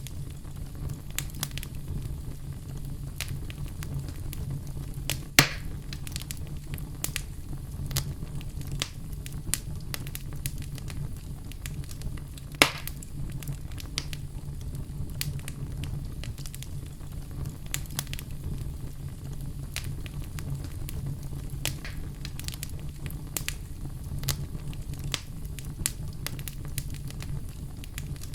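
Wood campfire crackling: a steady low rumble of burning wood dotted with frequent small crackles, and two louder pops, about five seconds in and again about twelve seconds in.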